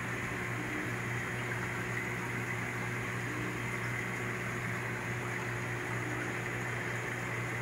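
Reef aquarium sump equipment running: pumps and a protein skimmer give a steady low hum under an even hiss of bubbling, flowing water.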